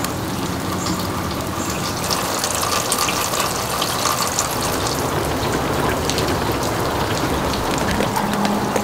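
Ice pellets falling steadily, a dense patter of tiny ticks on grass, a plastic bag and a deck.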